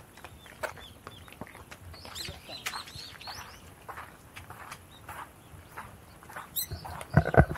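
Footsteps crunching on a gravel path at a walking pace, with small birds chirping now and then. Near the end comes a louder rumbling thump.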